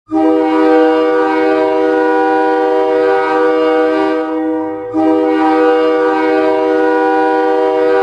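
Brandon Wheat Kings' hockey arena goal horn blowing two long, steady blasts of one low tone, the second starting about five seconds in, signalling a goal scored.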